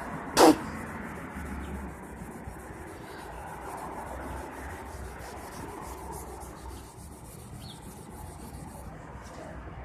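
Steady hand rubbing on a chromed steel cart handle as it is sanded and polished, with one brief, loud, sharp sound about half a second in.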